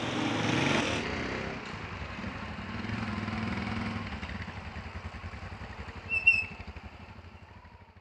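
Small motorcycle engines running as they pass and ride off, their sound swelling twice and fading near the end. A brief high-pitched chirp about six seconds in.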